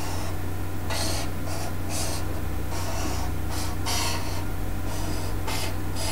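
Marker pen drawing lines on paper on a clipboard: a series of short scratchy strokes, several in quick succession, over a steady low hum.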